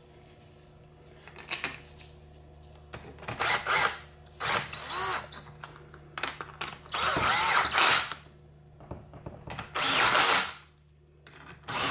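DeWalt cordless drill driving the cap screws of a T5 transmission's extension housing home, running in several short bursts that speed up and slow down, with small clicks of the socket and bolts between them.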